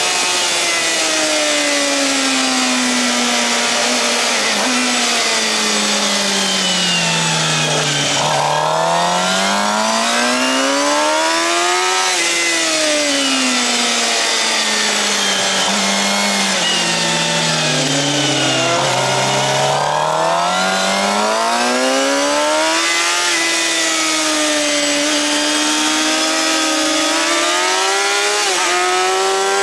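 Suzuki GSX-R750 inline-four through a Yoshimura R-11 slip-on exhaust, heard onboard on a track lap. The engine note drops slowly as the bike slows, then climbs smoothly under hard acceleration; this happens twice, and the note then holds high with small dips near the end.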